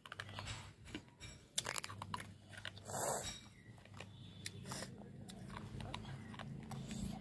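Raw amla (Indian gooseberry) eaten with green chilli being chewed close to the microphone: irregular crisp crunches and wet mouth clicks, loudest about three seconds in.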